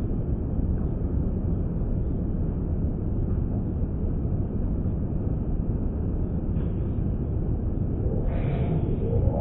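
Steady low cabin rumble inside a CRJ-900 regional jet, the even rush of engine and airflow noise heard from a passenger seat.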